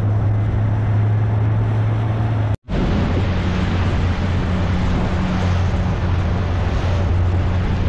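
Outboard motor of a small boat running steadily, with a low hum under wind and water rush. The sound cuts out for an instant about two and a half seconds in, then the same running resumes.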